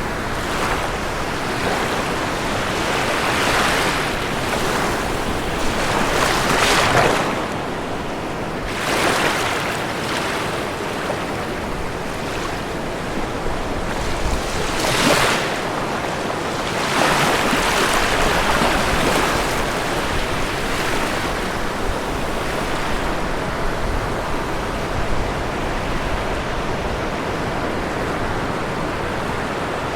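Ocean waves breaking and washing on a shore, several wave crashes swelling and fading over a constant surf hiss, settling to a steadier wash in the last third.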